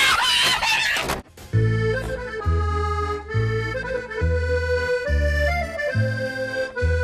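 A person screaming for about the first second, then, after a brief drop, French-style accordion music starts, with a bass note stepping back and forth beneath the tune.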